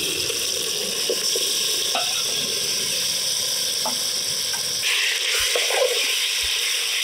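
Marinated duck meat sizzling as it goes into hot mustard oil and fried onions in a metal pot: a steady high hiss. About five seconds in the sizzle grows stronger, with light spatula scrapes against the pot as the meat is stirred.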